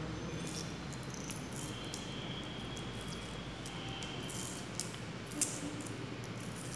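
Clear adhesive tape being peeled off its roll and wound around plastic drinking straws: irregular short crackles, with a faint thin high whine at times as the tape unrolls and one sharper click near the end.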